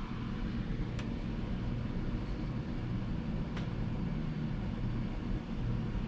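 Steady low rumble of distant road traffic, with two faint clicks, one about a second in and one about three and a half seconds in.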